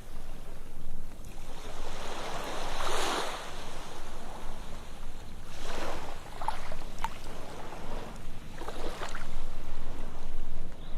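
Ocean surf washing onto a sandy beach, rising and falling in surges about three seconds apart, with fizzing and crackling as the foam spreads.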